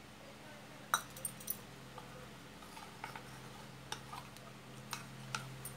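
Steel spoon stirring custard powder into milk in a ceramic bowl, clinking and scraping against the bowl in light, irregular ticks, the sharpest about a second in. A faint steady hum sits underneath.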